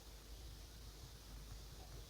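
Near silence: faint room tone with a steady hiss and a low hum.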